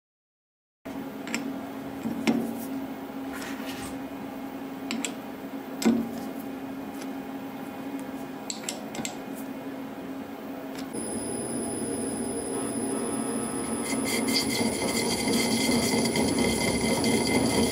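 Knocks and clicks of a nylon bar being handled and set into a metal three-jaw lathe chuck. About eleven seconds in the lathe spindle starts. From about fourteen seconds it runs with a louder steady whine made of several high tones.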